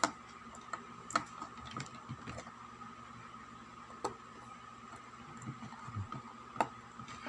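Multitester test probes tapping and scraping on component leads on a circuit board: scattered small clicks, four of them sharper, over a faint steady high whine.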